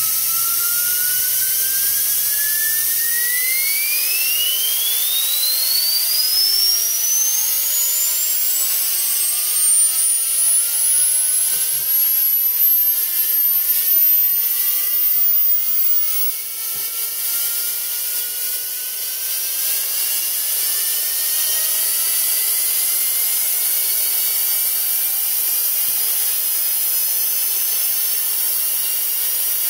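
Small brass gyroscope rotor spinning up from about 14,000 to over 50,000 rpm, its high whine rising steadily in pitch until it climbs out of hearing about halfway through, with fainter lower tones still rising beneath it over a steady hiss.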